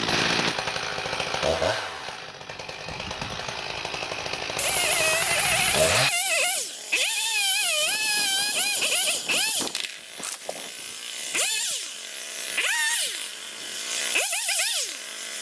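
Chainsaw running: a close, steady engine noise for the first six seconds, then a distant saw whose pitch rises and falls over and over as it revs in and out of the cuts that fell a tree.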